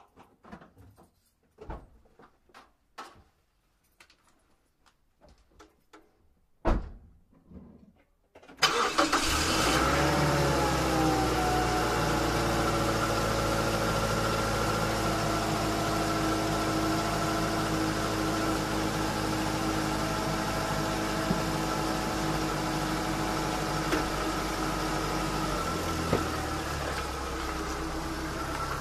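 Clicks and knocks of someone getting into a Mazda MPV, with a loud thump about seven seconds in. The engine starts about eight and a half seconds in and then idles steadily, its pitch falling and settling over the first few seconds; the low hum changes a couple of seconds before the end.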